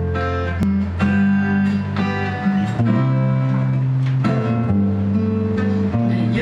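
Acoustic guitar strumming chords, with an electric guitar playing along, in a band's instrumental song intro.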